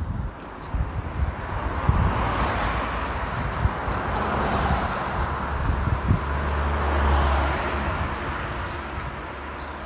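Road traffic: motor vehicles passing by, their tyre and engine noise swelling and fading twice.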